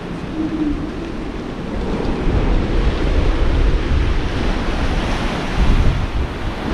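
Strong post-hurricane wind buffeting the microphone over choppy, surging harbour water, with a low rumble that grows louder about two seconds in.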